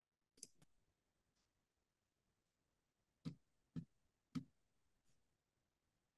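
Near silence broken by a few faint, short clicks: a couple just after the start, then three about half a second apart midway through.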